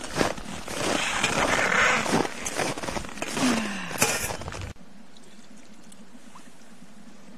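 Crunching footsteps and scraping in deep snow with clothing rustle as a person walks and crouches. About two-thirds of the way through it cuts off suddenly to a faint steady hiss.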